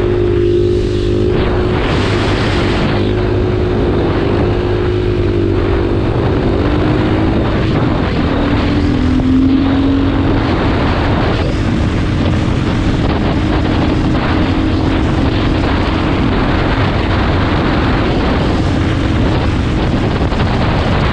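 2017 KTM 500's single-cylinder four-stroke engine running while the bike cruises down a paved road, with heavy wind noise on the microphone. The engine note dips briefly about nine to ten seconds in, then climbs back.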